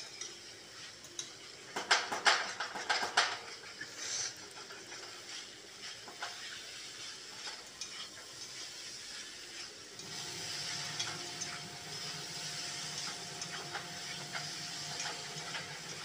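Spatula stirring and scraping okra in masala around a metal kadhai, with scattered clacks against the pan and a burst of louder clacks about two seconds in, over a faint frying sizzle. About ten seconds in a steady low hum joins.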